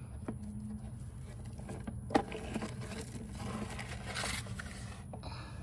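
A hand pushes a stuck dryer vent brush back into the hole past the plastic vent hood's flap: scraping and rustling of bristles and plastic, with light clicks and one sharp click about two seconds in. A low steady hum runs underneath.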